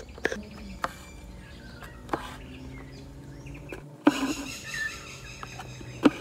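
An embroidery needle pierces thin canvas stretched in a hoop and thread is drawn through it, making a handful of short, sharp pops and rasps.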